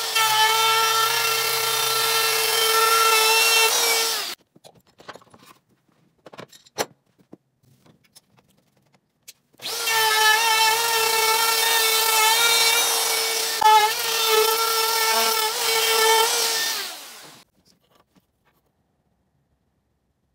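Compact wood router running at high speed and cutting a groove along the edge of a wooden threshold board for a J-hook interlocking threshold strip. It makes a steady high whine in two passes, with a few light knocks between them. Near the end the router winds down and stops.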